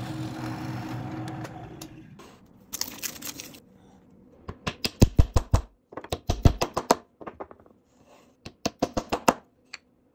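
Drill press motor running steadily, then fading out after about two seconds. Later come two runs of quick, sharp wooden taps, several a second, as small dowel pins are fitted into the holes of the wooden parts.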